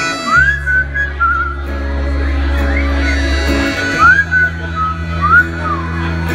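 Live band playing sustained chords on acoustic guitar and bass while audience members whistle loudly over it: several sharp rising whistles that level off, plus one warbling whistle.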